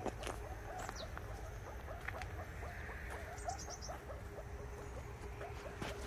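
A group of meerkats calling on alert: a steady stream of short, quick chirps, with a held low call from about the middle and brief runs of high, thin falling chirps about a second in and again past the middle.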